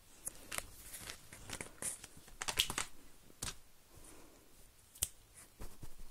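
Puppy scratching and pawing at the inside of a pet carrier: irregular bursts of scratching and rustling with sharp clicks, the busiest about two and a half seconds in.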